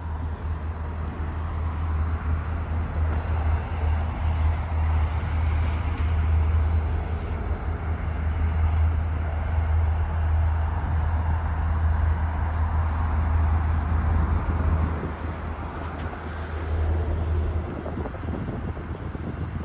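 Wind rumbling on the microphone over an outdoor background, with a far-off diesel freight train, led by several locomotives, approaching along the line.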